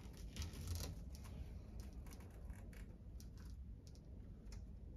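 Faint scattered clicks and light rustles of gloved hands handling a tape measure on a wooden workbench, with a few sharper clicks close together about half a second in.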